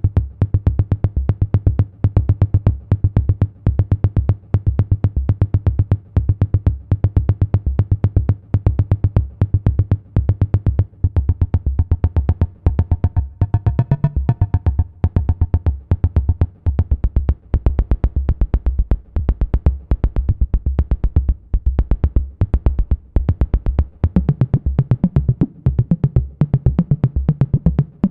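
Modular synthesizer patch built around the ST Modular Boba Fat module: a sequenced low bass line stepping between notes over a fast, steady drum-machine-style pulse. A higher wavering tone comes in briefly about halfway through.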